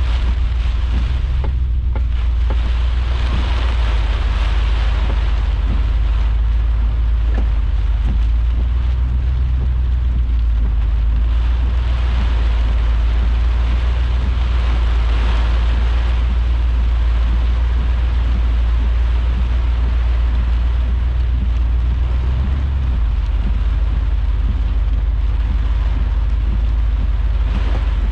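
Severe thunderstorm wind and rain, with heavy wind noise on the microphone giving a steady low rumble under the hiss of the rain.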